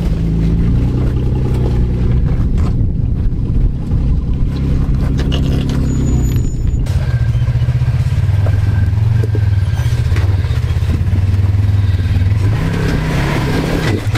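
An off-road Jeep's engine running at low revs while crawling up a rock ledge. Its revs briefly rise and fall near the end, with a few knocks a few seconds in.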